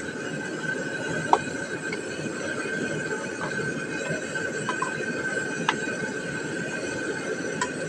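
Chicken pieces cooking in a pan in soy sauce and vinegar, a steady sizzling hiss, with a few light knocks of a wooden spatula against the pan.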